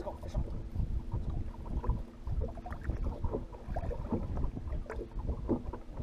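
Small waves lapping and slapping against a bass boat's hull, with wind buffeting the microphone and a faint steady hum underneath.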